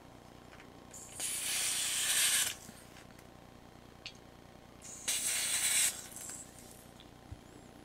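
Airsoft gas hissing from a gas can into the fill valve of a Marushin Taurus Raging Bull gas revolver's grip-mounted gas tank, in two bursts: one of about a second and a half, then after a pause one of about a second. A few faint clicks come between and after.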